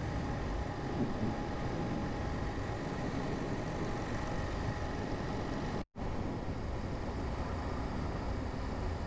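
Motorcycle running steadily at cruising speed, heard through a rider's microphone as a steady rumble and wind hiss with a faint engine hum. The sound cuts out for a split second about six seconds in.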